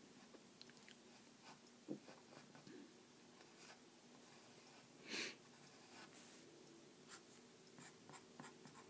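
Faint scratching of a pen on paper as short curved strokes are drawn, with scattered light ticks and one brief louder hiss about five seconds in.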